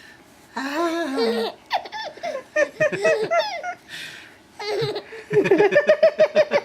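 A baby laughing hard: runs of quick, rhythmic laughs, with a breathy gasp drawn in about halfway through.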